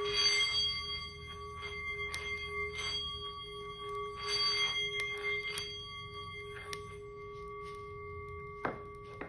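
A singing bowl rings on one steady pitch with bright overtones, held without fading. Scattered faint clicks and a few soft hisses sound over it.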